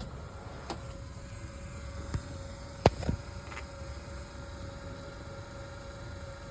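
Electric fuel pump running with a steady hum and low rumble, broken by a few sharp clicks or knocks, the loudest about three seconds in.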